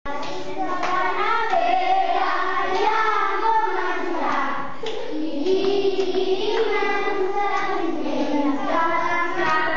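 A group of young children singing a playground clapping-game song in Catalan, with a few hand claps among the singing.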